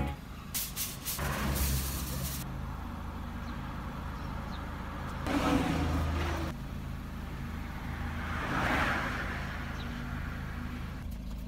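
Car engine idling steadily, heard close to its foil-wrapped exhaust pipe, as a low, even hum. A few brief rustling and handling noises sound over it.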